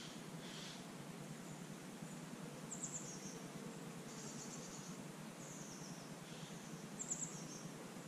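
Small birds singing short, high-pitched, falling phrases every second or two, over a steady low background hum of outdoor ambience.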